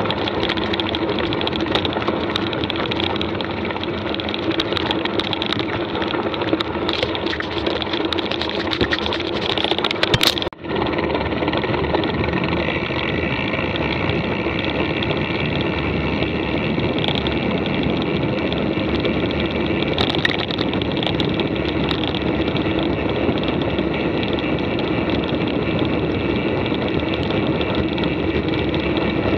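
Mountain bike being ridden: a steady rolling rush of tyres and trail noise with small rattling clicks. About ten seconds in there is a sharp knock and a momentary drop, after which the rolling goes on as a steadier hum.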